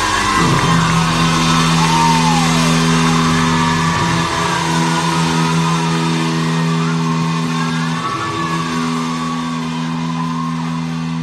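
Live rock band's amplified instruments holding a steady low note, with an audience screaming and cheering over it.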